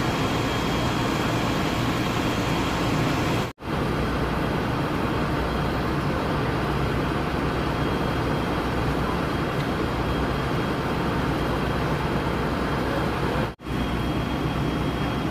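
Steady low rumble of idling heavy vehicle engines with street noise. The sound cuts out suddenly for a split second twice, once about three and a half seconds in and again near the end.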